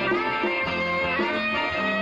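Live band playing an instrumental passage of a song, with no singing.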